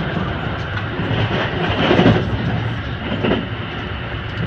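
Haruka airport express train running at speed, heard from inside the passenger car as a steady rumble of wheels and track. The noise swells louder for a moment about two seconds in.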